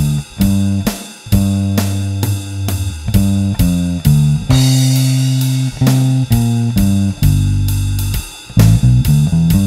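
Electric bass (Squier Bronco with a Nordstrand NM4v angled-pole pickup, through a Seymour Duncan Studio Bass Compressor) playing a blues-rock bass line of changing low notes, along with a drum beat; a cymbal crash rings about halfway through.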